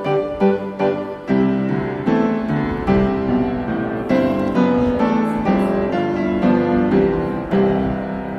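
Background piano music: a run of evenly repeated struck notes, then fuller held chords from about a second and a half in.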